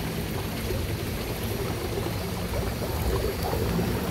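Steady rushing noise of running water with a low, even hum beneath it; faint distant voices about three seconds in.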